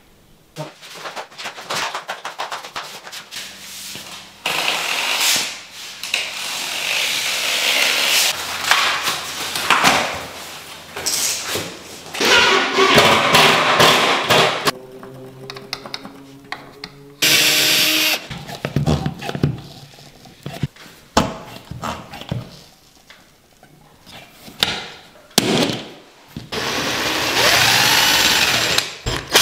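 Cordless drill running in short bursts, drilling through a cabinet side into the wall, with knocks and clatter from handling the cabinet panels.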